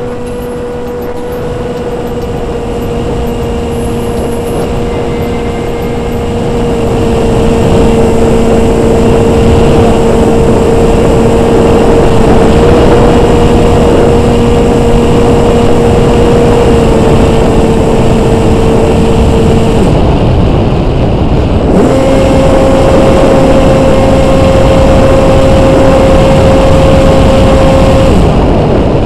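The Easystar plane's electric motor and propeller whine steadily under heavy wind rush. About two-thirds in the whine cuts out for a couple of seconds and returns slightly higher, and near the end it stops again as the radio failsafe cuts the motor power.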